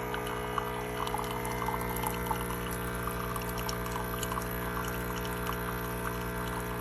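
Cuisinart SS-4N1 Coffee Center Barista Bar brewing: its pump motor runs with a loud, steady buzzing drone while water pours through. The owner takes the noise for a terrible motor and feels something isn't right.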